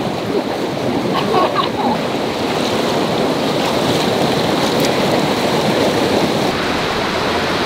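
River rapids rushing steadily over granite rock ledges: a loud, even wash of white water.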